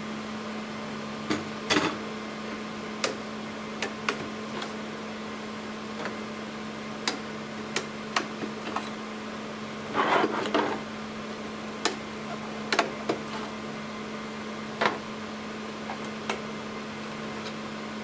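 Scattered clicks, taps and knocks of memory cards and metal chassis parts being handled and set down on a metal-topped table, with a clatter of several knocks about ten seconds in, over a steady low hum.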